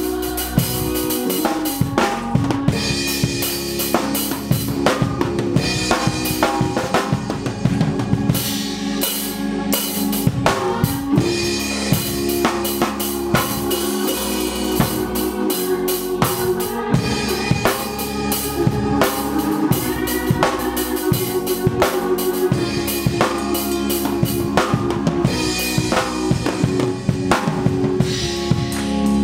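Drum kit played live in a busy groove, snare, bass drum and cymbals hitting densely, over held organ chords.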